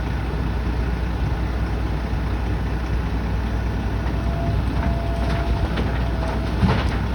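Construction machinery engine running steadily with a low rumble. A faint thin squeal and a few light clicks come in during the second half.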